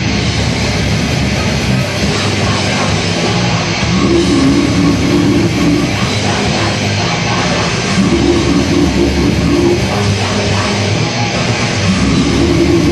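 A death metal band playing live at full volume: distorted electric guitars, bass and drums in a fast, dense wall of sound, with a heavy riff that comes back about every four seconds.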